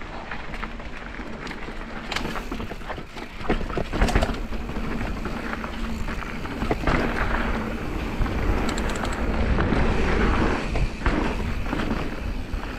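Mountain bike rolling along a dirt singletrack: steady tyre and riding noise with frequent knocks and rattles as it goes over bumps, the loudest knock about four seconds in.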